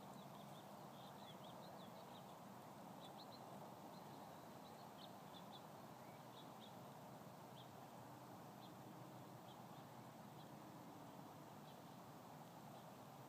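Near silence: faint outdoor background hiss with scattered faint, short, high-pitched ticks, most of them in the first half and fewer later on.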